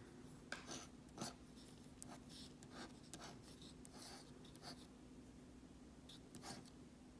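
Faint scratching of a pen drawing lines across a paper scratch-off ticket, in a series of short strokes, over a faint steady hum.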